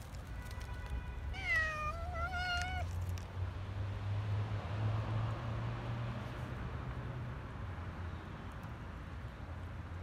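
A cat meows once, a call of about a second and a half that drops in pitch and then wavers, over a low steady background hum.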